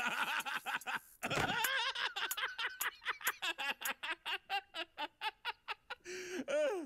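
A cartoon character's voice laughing hard at a joke: a long run of quick laughs at about four a second, getting shorter and choppier, ending in a longer rising-and-falling gasp.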